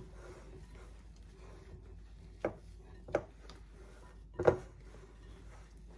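Hands rubbing and mixing torn pieces of flatbread with flaxseed in a glass bowl, with three dull knocks at about two and a half, three and four and a half seconds in, the last the loudest.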